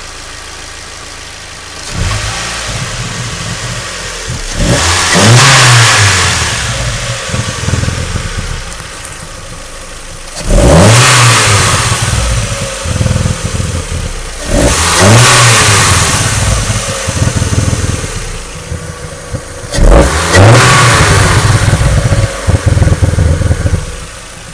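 1999 Mazda Miata's 1.8-litre four-cylinder engine, hood off, idling and revved four times, each rev rising and falling back to idle, the last one choppy. The revs carry a pop out of the intake that appears only with the engine warm; the owner suspects bad gas, spark plugs, weak valve springs or injectors.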